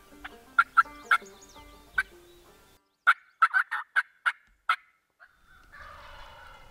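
Wild turkey calls: a quick run of about eight sharp yelping notes a little past the middle, then a rattling gobble near the end. Music fades out about three seconds in.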